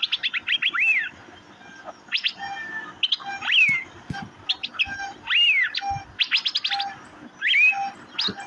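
Asian fairy-bluebird (Irena puella) calling: quick runs of short, sharp notes mixed with several loud whistles, each rising and then sliding down over about half a second.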